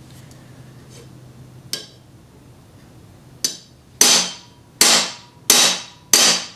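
Ball-peen hammer striking a rivet on a Sheridan air rifle's metal pump lever held in a bench vise, bucking the rivet to set it. There are two lighter taps, then four hard metallic blows about two-thirds of a second apart, each ringing briefly.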